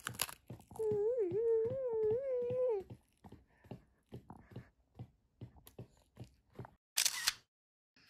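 Crisp crunches of a toddler biting and chewing a large puffed rice cracker, with a wavering hummed note for about two seconds near the start. Near the end comes one loud crackle, then the sound cuts off suddenly.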